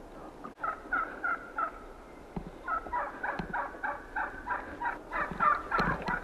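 Turkey calls: a run of short yelping notes, about three a second, which pause briefly and then come back faster and louder toward the end.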